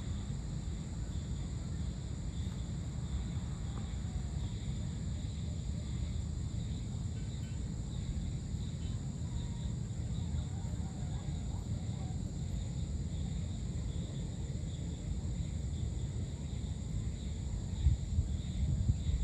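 Evening ambience of crickets and other insects, chirring steadily in a high continuous drone over a low steady rumble. A couple of brief thumps come near the end.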